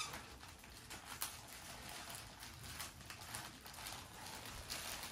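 Clear plastic wrapping crinkling and rustling as hands pull at it, in faint irregular crackles.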